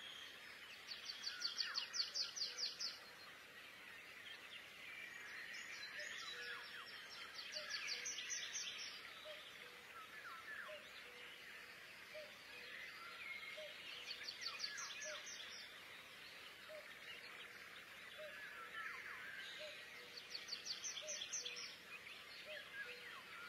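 Songbird singing: a rapid, high trill repeated every few seconds, with softer chirps in between.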